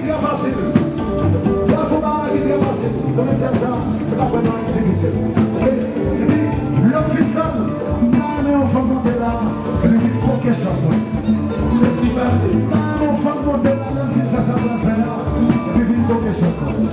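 Live kompa band playing: a male lead vocal sung over bass, keyboard and drums keeping a steady dance beat, picked up from the concert sound system.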